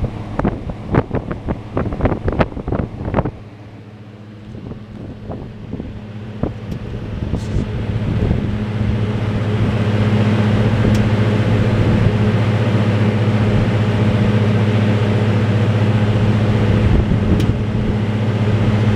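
Exhaust fan running, heard at its outside wall vent hood: a steady low hum with a rush of moving air. For the first three seconds a rapid, irregular run of clicks and knocks sounds over it. Then the rush of air grows louder over several seconds and holds steady.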